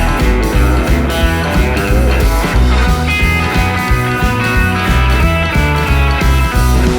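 Background rock music led by electric guitar, with a steady bass and drum beat.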